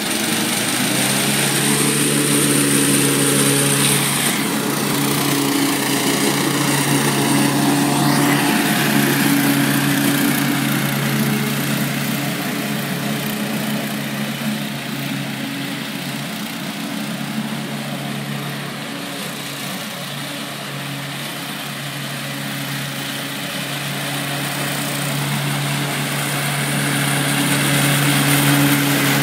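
Exmark Metro 48 walk-behind mower's engine running steadily while cutting grass. It grows fainter in the middle as the mower moves farther off and louder again near the end as it comes back close.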